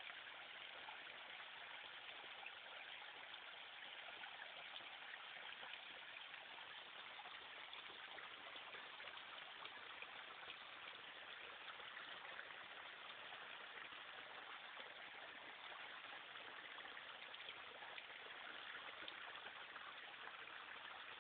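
Faint, steady hiss with no distinct events: near-silent background noise.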